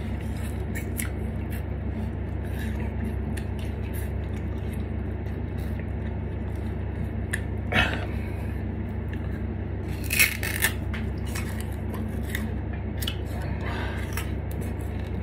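Raw sugarcane being bitten and chewed, the fibrous stalk crunching and crackling between the teeth as the juice is sucked out. There are scattered small crunches and a few louder ones about eight and ten seconds in, over a steady low hum.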